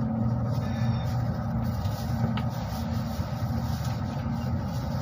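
Steady low rumble of a passenger train running along the track, heard from inside the carriage, with a light click a little over two seconds in.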